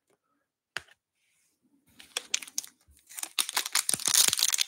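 Wrapper of a 2022 Bowman Draft baseball card pack being torn open and crinkled by hand, starting about two seconds in and getting louder and busier. A single click comes just before that.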